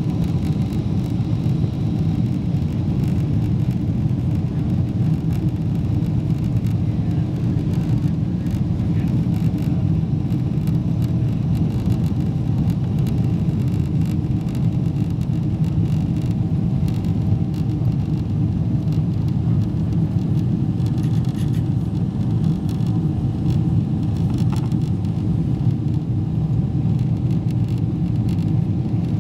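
Steady low rumble inside a Boeing jet airliner's cabin during the climb after takeoff: the engines at climb power and the rush of air past the fuselage, with a few faint steady whines above.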